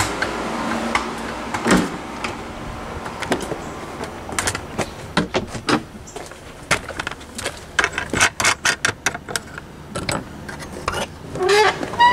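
Footsteps and doors being handled: a string of irregular knocks and clicks, thickest in the second half, with a short squeak near the end.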